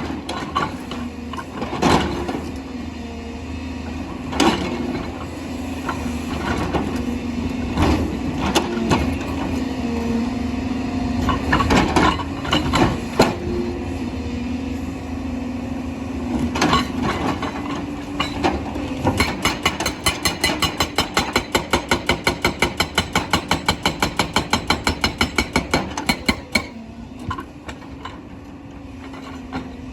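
JCB excavator's diesel engine running under load, its pitch rising and falling as the hydraulics work, with scattered sharp knocks and clanks of stone. In the second half, a fast, regular hammering of about five blows a second runs for several seconds, then stops suddenly.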